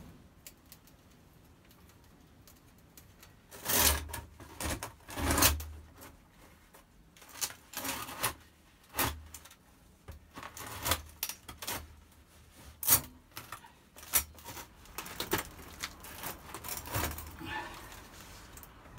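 Metal stove flue pipe being handled and fitted at its joints: irregular knocks, scrapes and clicks, with two louder knocks about four and five and a half seconds in, then scattered lighter taps.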